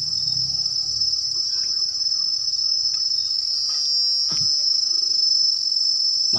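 Insects keeping up a steady, high-pitched drone, with a couple of faint clicks about four seconds in.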